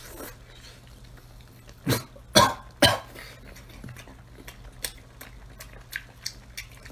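A man eating with loud mouth noises: three sharp, loud noises about two to three seconds in, then soft, wet chewing clicks.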